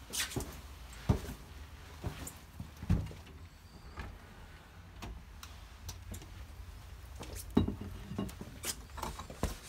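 Irregular thumps, knocks and scuffs of people clambering in through a window and moving about, over the low rumble of a handheld camera being jostled. The sharpest thumps come about a second in and again past the middle.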